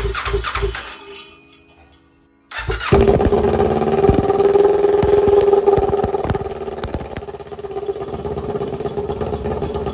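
Kawasaki Ninja 400's parallel-twin engine on its first start after a new fuel rail and injectors were fitted. The starter cranks it with a rhythmic chug for about a second, then it falls quiet. The engine fires abruptly a couple of seconds later and runs at a steady pitch, settling a little quieter near the end.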